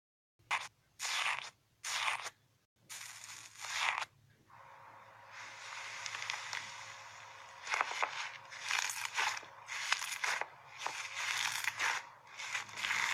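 Slime being squeezed and pressed by hand: a run of short crunchy, crackling squishes, then a steadier hiss with denser crackling in the second half.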